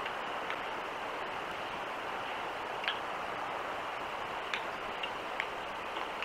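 Steady rush of trickling water around a wet, muddy enclosure, with about six sharp, scattered ticks of drips.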